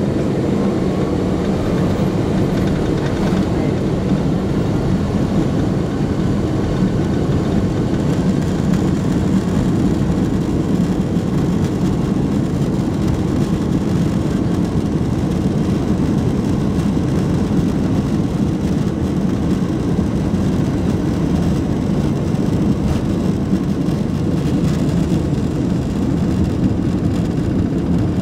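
Inside the cabin of a Boeing 767-300 on its takeoff roll and liftoff: the jet engines at takeoff thrust and the airframe's rumble, a loud, steady, low noise.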